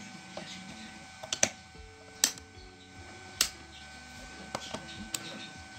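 Sharp plastic clicks and knocks from a 3.7 V lithium-ion cell being pressed into a plastic battery holder and multimeters being handled: a quick cluster of clicks about a second and a half in, single loud clicks near two and three and a half seconds, and lighter taps near the end.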